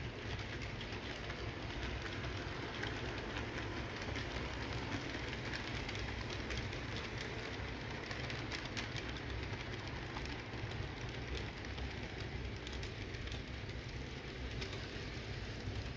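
Model train running on its sectional track: a steady low rumble from the motor and rolling wheels, with light clicking as the cars cross the rail joints. The passenger cars pass close by about halfway through.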